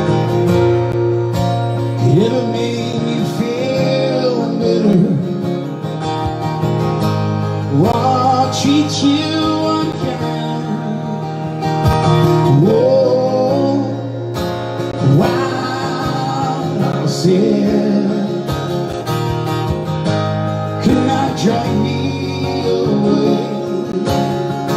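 A man singing into a microphone while strumming an acoustic-electric guitar, both amplified. The voice comes in phrases of a few seconds with short gaps, and the guitar chords carry on steadily beneath.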